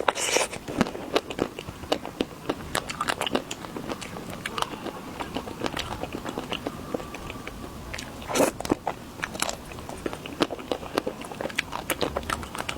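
Close-miked biting and chewing of chocolate, with many sharp crunching crackles. The loudest bites come just after the start and again about eight and a half seconds in.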